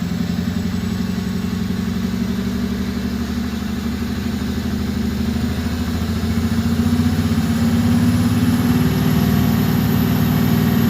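Flatbed truck's engine revved slowly upward and held at raised revs, running rough with a misfire. A faint high whine rises along with the revs.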